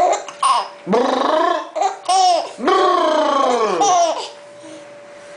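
A baby about seven months old laughing in several long, high bursts that fall in pitch, stopping about four seconds in.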